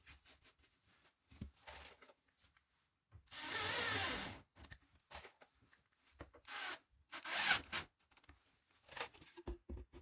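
Wooden panel scraping and rubbing as it is slid along the cabinet's grooves, with small knocks in between. The longest scrape lasts about a second a little after three seconds in, with two shorter ones around seven seconds.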